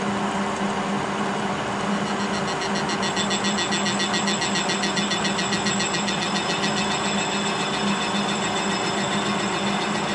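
Kearney & Trecker horizontal milling machine running under power, its spindle gearing and arbor-mounted cutter turning with a steady hum and a strong low tone. About three seconds in, a fast, fine, even rattle joins in the higher range.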